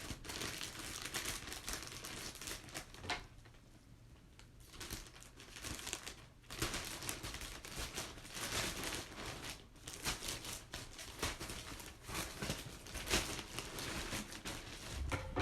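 Packaging crinkling and rustling as a package is handled and opened, with scattered small crackles and a brief quieter lull a few seconds in.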